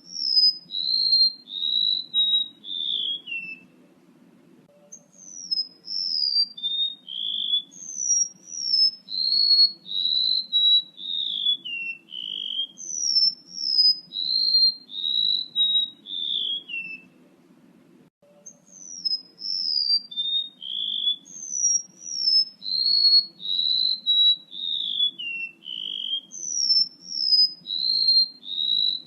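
Golden-bellied gerygone (remetuk laut) song, a male's call used as a bird lure: long strings of high, thin whistled notes, each sliding down in pitch and the phrases stepping downward, breaking off twice for a second or so before starting again. A faint low hum lies underneath.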